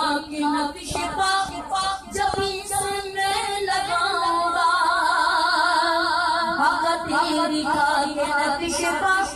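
A man singing an Urdu naat into a microphone, stretching the words into long wavering notes; after a few short breaths in the first two seconds he holds one drawn-out note-run for about three seconds.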